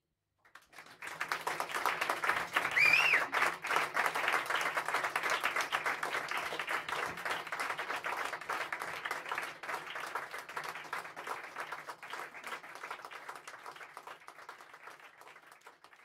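Audience applauding: dense clapping that swells in about a second in and slowly dies away near the end, with one short whistle about three seconds in.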